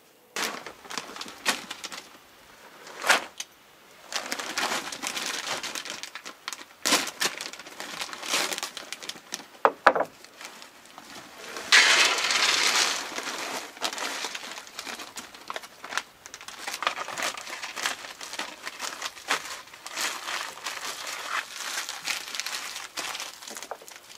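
Irregular rustling and crinkling, as of something being handled, with scattered sharp clicks and taps; the loudest stretch of rustling comes about halfway through.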